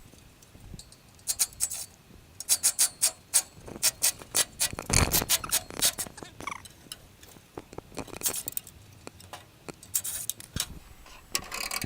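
An impact driver backing out the fan motor's mounting screws, working in several short bursts of rapid sharp clicking with pauses in between.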